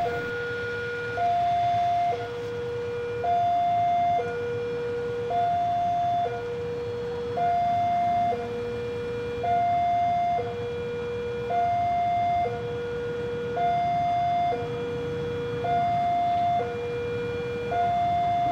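Railway level-crossing warning alarm sounding a steady two-tone alternation, a higher note then a lower note, each about a second long, repeating about every two seconds: the signal that a train is approaching the crossing.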